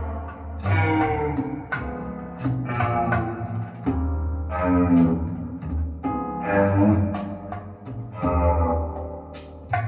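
Instrumental break of a recorded song, with plucked guitar notes over a steady bass line and no singing.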